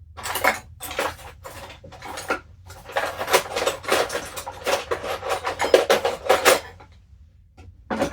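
Metal parts and tools clinking and clattering as they are handled on a work surface: a dense run of clicks and rattles that stops about seven seconds in, followed by one more sharp click near the end.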